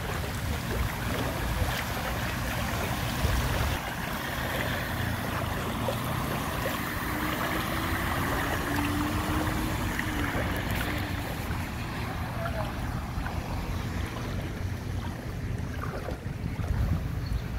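A car drives through floodwater on a street, its tyres throwing up a splashing wash that swells in the middle, over steady wind rumble on the microphone.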